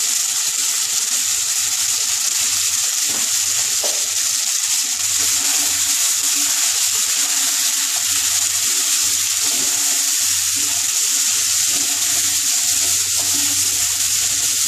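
Cubed pumpkin, potato, pointed gourd and soaked chickpeas sizzling steadily in hot mustard oil in a non-stick frying pan, turned now and then with a wooden spatula.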